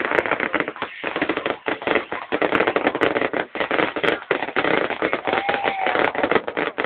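Fireworks crackling and popping in a dense, continuous barrage of rapid bangs.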